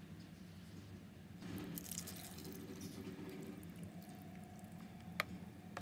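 Milk pouring from a carton into a bowl of granola, a faint liquid splashing that starts about a second and a half in, with a sharp click near the end.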